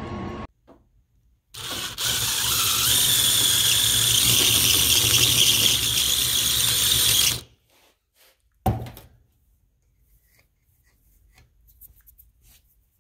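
Cordless drill running for about six seconds with a bit working against the end of a galvanized 3/4-inch EMT tube clamped in a vise, a steady run with a high whine, stopping abruptly. A short knock follows about two seconds later, then a few faint clicks.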